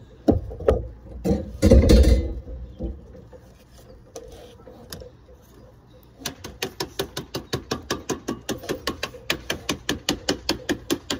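Code 5 sheet lead being dressed down with a lead dresser: a few heavy thumps in the first couple of seconds, then from about six seconds in a steady rapid tapping, roughly five blows a second, as the front edge is worked down over the stone.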